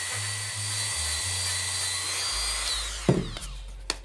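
Corded handheld rotary tool with a small sanding drum, running at a steady high whine as it sands a taper into the edge of a foam piece, then switched off and winding down a little before three seconds in. A loud thump follows, then a few light knocks near the end.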